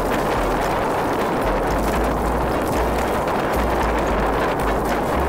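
Water rushing and splashing along a Sunfish sailing dinghy's hull as it sails, with wind buffeting the microphone in uneven low gusts.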